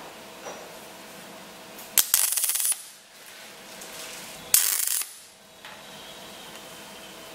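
MIG welding torch laying two short tack welds on a sheet-steel wheel-arch repair panel: two crackling bursts of the arc, the first under a second long about two seconds in, the second about half a second long a couple of seconds later.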